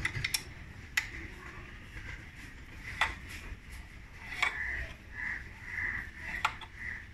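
An Allen key working the front mudguard bolt on a Bajaj Pulsar 150's fork leg, turned by hand: about five sharp metal clicks spaced a second or more apart, with a run of short high squeaks in the second half.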